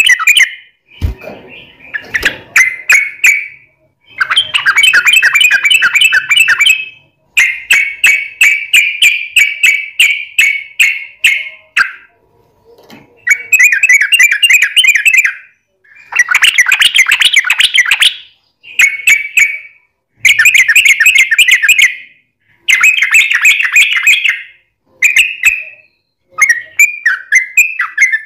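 Yellow-vented bulbul singing: about a dozen loud phrases of rapid, chattering notes, each lasting one to five seconds, with short pauses between them.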